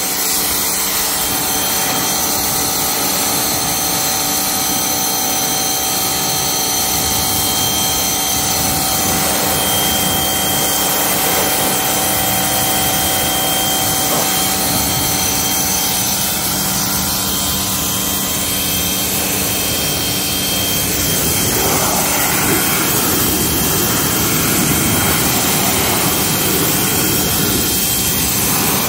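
Craftsman pressure washer running steadily, with a constant hum and whine under the hiss of its high-pressure water jet striking a car's paint and wheel. About three-quarters of the way through, the spray noise grows broader and a little louder as the jet works along the front bumper.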